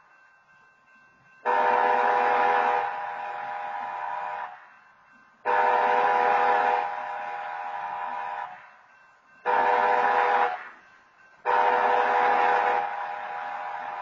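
BNSF locomotive air horn sounding the grade-crossing signal for a train approaching a road crossing: two long blasts, one short, then a final long one. Each blast is a chord of several steady tones.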